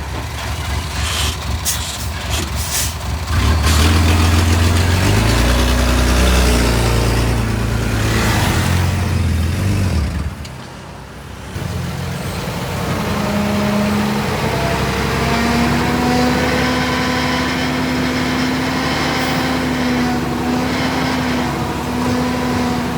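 Heavy diesel engine of a dump truck or bulldozer running and revving under load, with a few sharp clicks or hisses in the first few seconds. About eleven seconds in the sound drops briefly, then a steadier engine note carries on.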